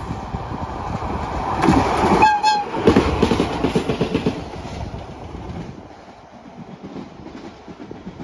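A JR DE10 diesel locomotive gives one short toot on its whistle about two seconds in, a greeting from the driver as it passes. The loud pass follows, with wheels clacking rhythmically over the rail joints under the locomotive and the Maya 34 track inspection car, then fades as the train moves away.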